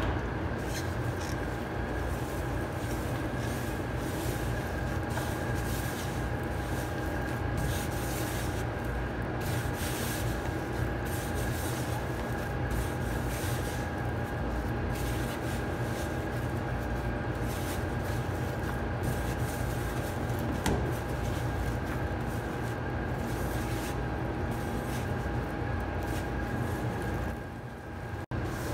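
Gloved hands mixing and kneading minced chicken with breadcrumbs in a stainless steel tray, with irregular scratchy strokes, over a steady mechanical hum carrying a faint high tone.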